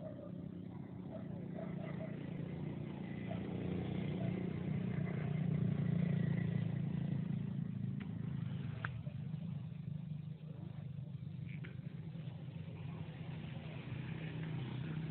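A low engine hum that swells louder midway, eases off, then builds again near the end, with a few faint clicks.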